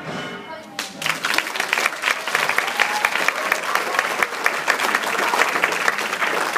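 Audience applauding in a hall: many hands clapping, starting about a second in as the singing ends and going on steadily.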